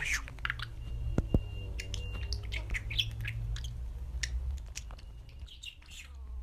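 Budgerigar chattering in short, scattered high chirps and squawks, over a low steady hum.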